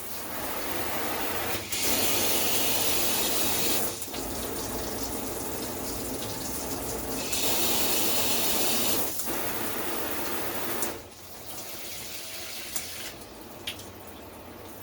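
Water spraying hard from a newly fitted Oxygenics Fury RV shower head: a steady rush at strong pressure, twice growing louder and brighter for a couple of seconds. About eleven seconds in the flow drops to a quieter, softer stream.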